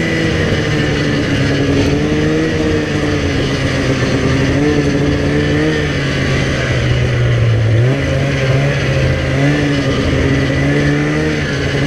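2004 Polaris Pro X 550 snowmobile's two-stroke twin running through an aftermarket Snow Stuff exhaust can while riding, the revs rising and easing with the throttle. The revs drop briefly about eight seconds in, then climb again.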